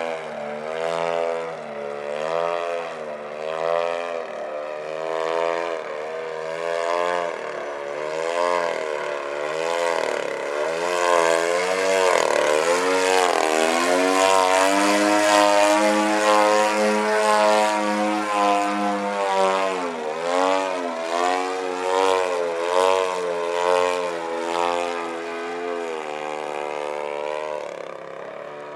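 Radio-controlled Edge 540 aerobatic plane in flight, its RCGF-62 two-stroke gas engine and propeller running with the pitch swinging up and down about once a second as it manoeuvres and passes. The engine is loudest and holds a steadier note in the middle, then fades near the end as the plane flies off.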